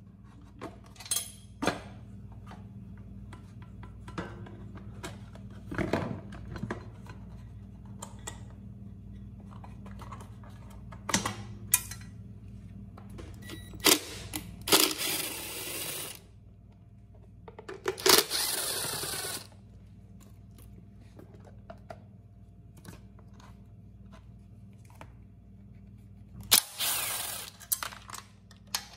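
Cordless driver running in a few short bursts to back out the fasteners of a small engine's top cover, amid clicks, knocks and light metal clinks of the tool and loosened parts being handled.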